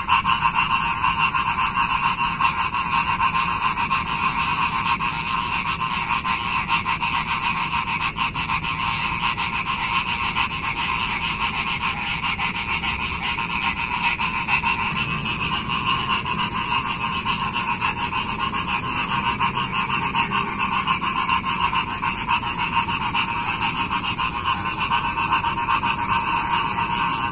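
Chorus of many frogs calling at once, a dense, steady, unbroken din with no pauses.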